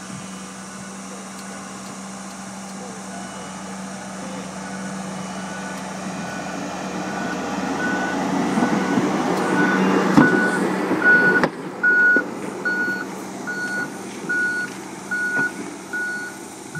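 A 6-tonne Komatsu rubber-tracked dumper running on hydraulic hi-rail wheels along the rail, its engine hum and rolling noise growing louder as it comes close, loudest about ten seconds in. Its travel alarm beeps steadily, about three beeps every two seconds. The rolling noise drops away suddenly about eleven seconds in, leaving the beeps over a quieter engine.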